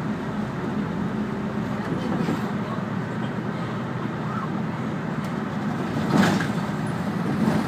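Diesel city bus running, heard inside the cabin: a steady engine and road hum, with a short burst of hissing noise about six seconds in.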